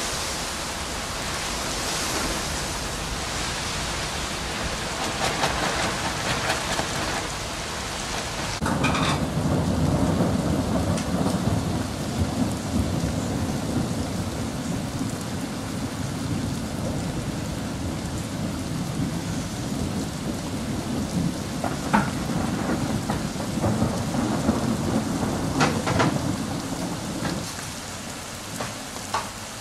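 Thunderstorm: steady rain hiss, then a sudden deep rumble of thunder about nine seconds in that rolls on for most of the rest and dies away near the end.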